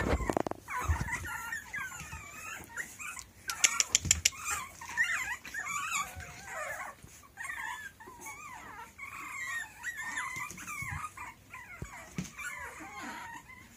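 A litter of puppies whining and yipping together: high, wavering cries overlapping almost without a break. About three and a half seconds in comes a quick run of clicks.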